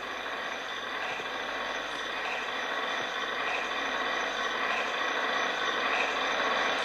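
A sustained noisy drone from a live experimental sound improvisation: a dense wash of noise with many steady high tones and faint soft pulses, slowly getting louder.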